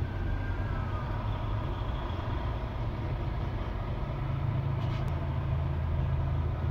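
Low, steady engine and road rumble heard from inside a vehicle's cabin, with a faint siren wail falling in pitch near the start.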